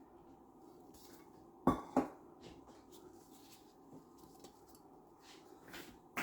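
Kitchenware knocking: two sharp knocks close together about two seconds in and another at the very end, over quiet room tone.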